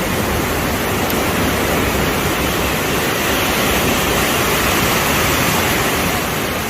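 Steady, loud rushing noise at the shore, swelling a little in the middle and easing near the end.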